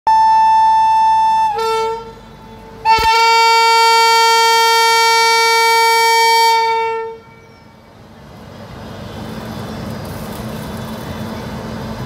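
WAP7 electric locomotive's air horn sounding two blasts for departure: a short one, then about a second later a longer blast of about four seconds with two pitches sounding together. After it stops, a low rumble swells as the train starts to move off.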